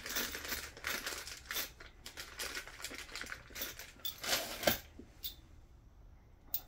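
A small plastic bag of metal cable lugs being handled: the bag crinkles and the small metal parts clink together. It goes quiet about five seconds in, with one sharp click near the end.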